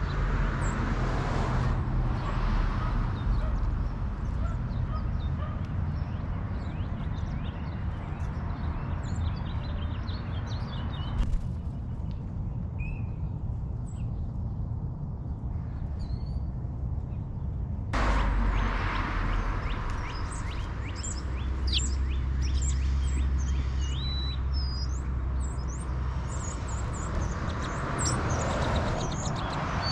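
Outdoor ambience: small songbirds chirping and calling here and there over a continuous low rumble. The background changes suddenly twice, about a third and about three-fifths of the way through.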